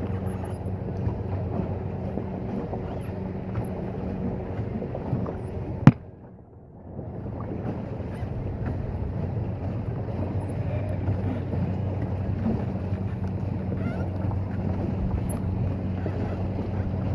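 Steady rush of wind on the microphone and water noise aboard a moving pedal boat, with a low steady hum underneath. A single sharp click about six seconds in, after which the sound drops away for about a second.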